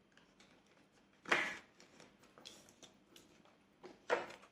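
Short rustles of paper money and envelopes being handled, with a few faint clicks; the loudest rustle comes about a second in and another near the end.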